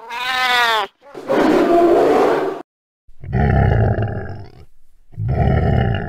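A run of four animal calls: a short cry with a wavering pitch, a rasping growl, then two deep roars about two seconds apart.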